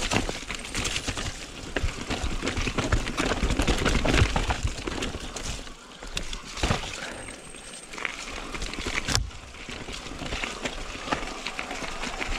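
Mountain bike riding over a rough trail: tyre noise and a steady clatter of rattles and knocks from the bike, with a low rumble through the first half. It grows quieter after about six seconds, leaving scattered knocks and one sharp knock about nine seconds in.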